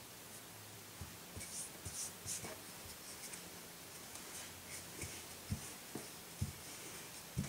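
Quiet scratchy rubbing and scraping with scattered soft taps, from hand work.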